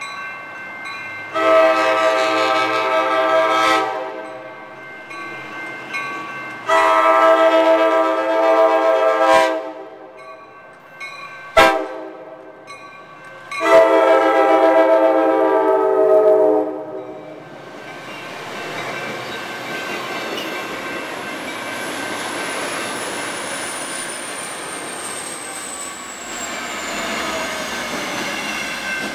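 Coaster commuter train's multi-tone air horn sounding long, long, short, long, the standard signal for a grade crossing ahead. The train then rolls past, with a steady rumble and a high whine that slowly falls in pitch as it slows for the station stop.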